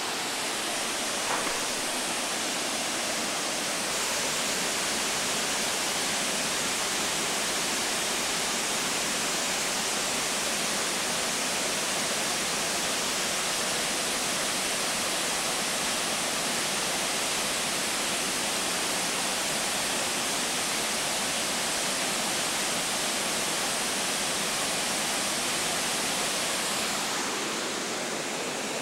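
Steady rush of a small waterfall spilling off rock into a pool, easing slightly near the end.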